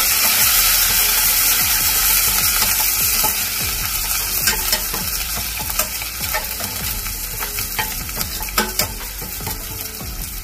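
Spices, ginger-garlic, green chillies and coriander sizzling in hot oil in a stainless steel pot, stirred with a slotted steel spatula that scrapes the pot. The sizzle eases off slowly, and from about four seconds in the spatula gives sharp clinks on the metal.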